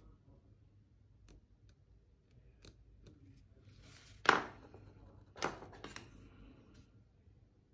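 Paint marker being set down and handled on a hard tabletop: two sharp clicks about a second apart, the first the louder, among faint small ticks.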